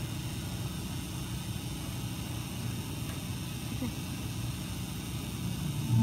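Steady low rumble of room noise with a faint hiss.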